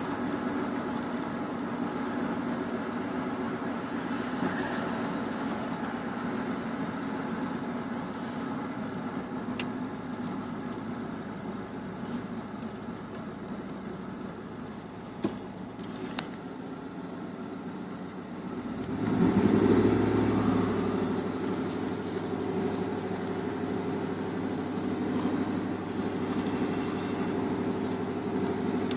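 Boeing CH-47 Chinook tandem-rotor helicopters running as they hover and land, a steady drone of rotors and turbines that swells louder about two-thirds of the way through, then eases back.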